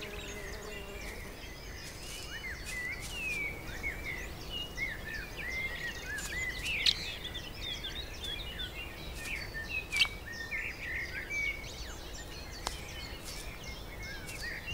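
Many small birds chirping in short, quick rising and falling calls over a steady outdoor background, with a couple of sharp clicks about seven and ten seconds in.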